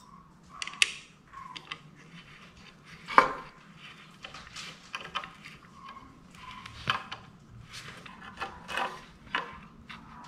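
Irregular clicks and knocks of wooden garment-rack parts and metal hardware being handled and fitted together during assembly, the loudest knock about three seconds in.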